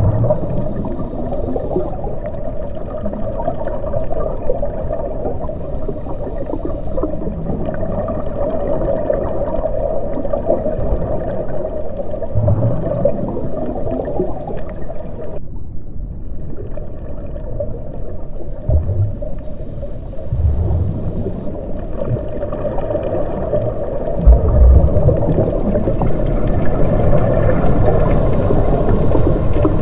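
Underwater ambience: a steady, muffled rumble of water with a few deeper low thumps. The higher part of the sound drops out briefly about halfway.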